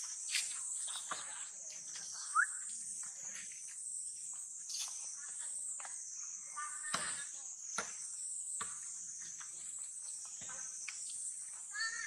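A steady high-pitched insect chorus, with scattered light clicks and taps and a few brief squeaky calls over it.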